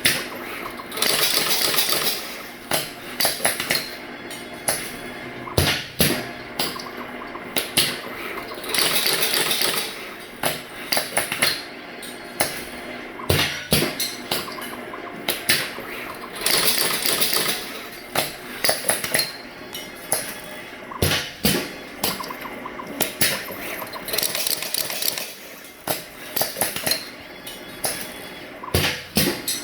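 Automated wire-harness crimping and soldering machine cycling: quick mechanical clicks and knocks from its stepper-driven axes and crimp press, with a longer rushing burst in each cycle, repeating about every eight seconds.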